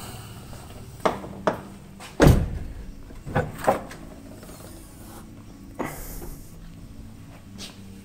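Alfa Romeo GT's bonnet being released and opened: latch and lever clicks, a heavy thud a little over two seconds in, then more clicks as the bonnet is raised and propped.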